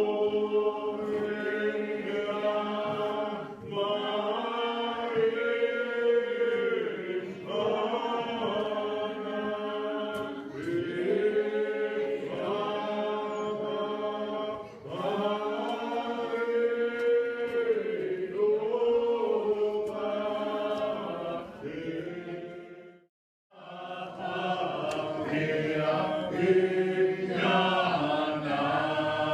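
Congregation singing a Muscogee Creek language hymn in long sung phrases. The singing breaks off briefly about three quarters of the way through, then starts again.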